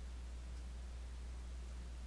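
Quiet room tone: a steady low hum under a faint hiss, with no distinct event.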